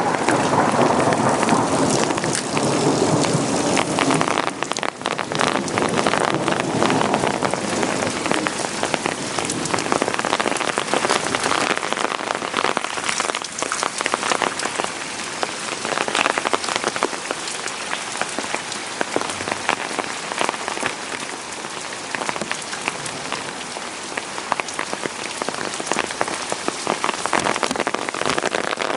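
Heavy thunderstorm rain pattering steadily on surfaces, full of close drop ticks. A rumble of thunder fades out over the first several seconds.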